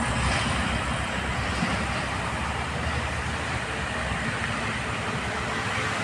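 Steady road traffic: cars and motorcycles driving past, with engine rumble and tyre noise and no horn.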